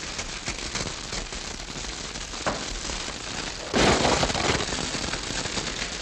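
Radio sound-effects fire: a bundle of straw and crumpled wrapping worked close to the microphone, crackling steadily to imitate dry grass catching fire, with a sharp click about two and a half seconds in and a louder surge of crackle near four seconds.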